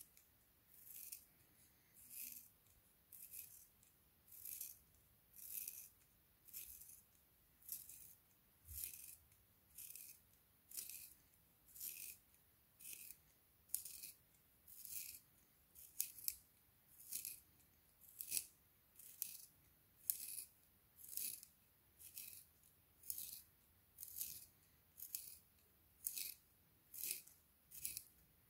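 Handheld plastic pencil sharpener shaving a wooden pencil: a soft, faint rasping scrape with each twist, about one a second, as the blade peels off one long curled shaving.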